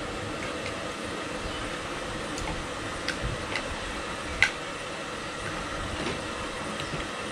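Cutlery clinking against plates a few times, the sharpest click about four and a half seconds in, over a steady background hum.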